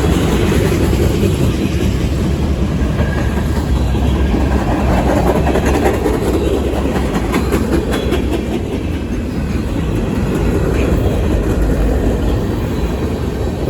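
A train rolling past close by: a steady loud rumble of wheels on the rails with some clickety-clack.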